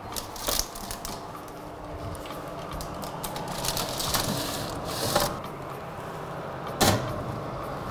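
An oven being loaded by hand: a parchment-lined baking tray slid across the hob and onto the oven rack, then a dish set in, with paper rustling, scraping and a few knocks of metal. The sharpest knock comes near the end.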